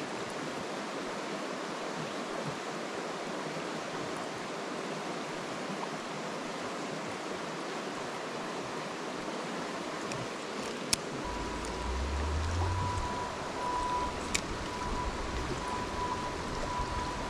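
Small rocky mountain trout creek flowing over a riffle: a steady rush of water. In the second half two sharp clicks sound a few seconds apart, and a low rumble and a thin high tone that comes and goes join in.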